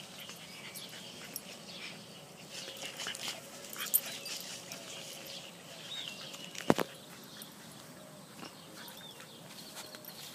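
Westie puppies playing: faint squeaky whimpers and yips over light scuffling. A sharp knock about two-thirds of the way through is the loudest sound.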